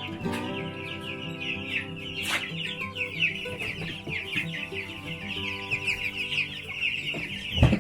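A flock of chickens clucking and chirping continuously, many birds calling over each other, with background music underneath. There is a loud thump near the end.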